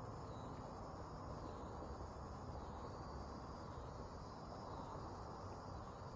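Insects trilling, a high-pitched song repeating in phrases about a second long, over a faint low background rumble.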